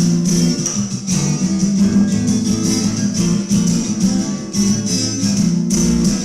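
Acoustic guitar strummed and plucked in a blues style, with strokes landing roughly every half second to a second over ringing chords.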